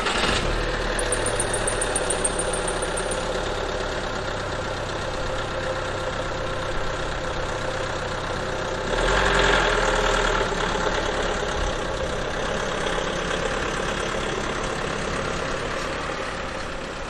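Van engine idling steadily, swelling briefly about nine seconds in, then easing down near the end.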